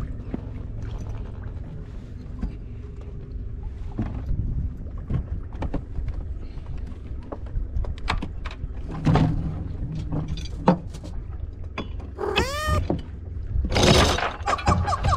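Sailboat's anchor windlass being worked by hand at the bow: scattered metal clicks and knocks, a short squeal that rises and falls about twelve seconds in, then the anchor chain rattling over the windlass near the end as the anchor is let down.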